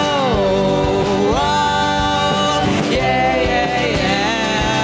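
Live band playing a song, with a singer holding long notes that slide up and down between pitches over a steady beat.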